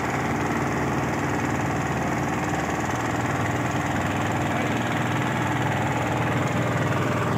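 A boat's engine running steadily at an even speed.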